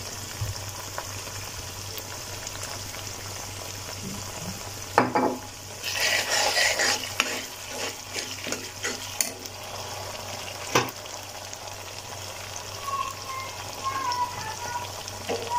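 Onion and spice masala with sauce sizzling in oil in a kadai while a steel spoon stirs and scrapes it. The sizzling grows louder for a moment about six seconds in, and there are a few clicks and a sharp knock of the spoon against the pan.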